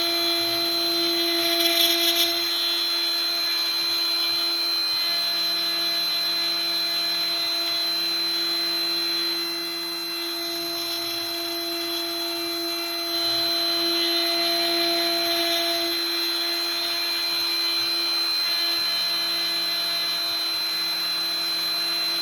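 CNC router milling a wooden bread cutting board: the spindle runs with a steady high whine while lower stepper-motor tones slide up and down as the machine moves. The sound drops slightly about ten seconds in and comes back up about three seconds later.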